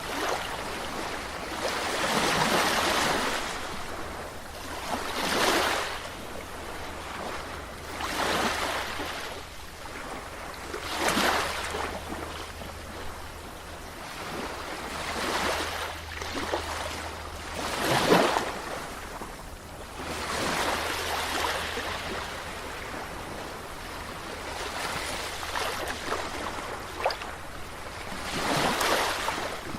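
Sea waves washing ashore, each wave a surge of hiss that swells and fades, coming every two to three seconds, with the loudest surge about eighteen seconds in.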